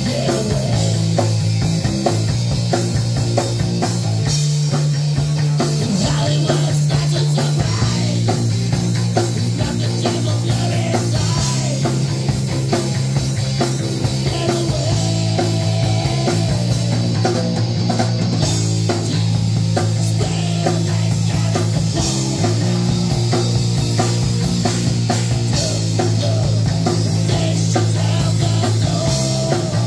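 Live rock band playing an instrumental passage: amplified electric guitar and bass guitar, with a sustained low bass line under the guitar.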